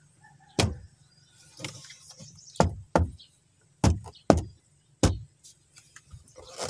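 Hand knocks and taps on the wall of a custom car-audio enclosure as its plastic trim frame is pressed into place: about seven dull knocks, irregularly spaced.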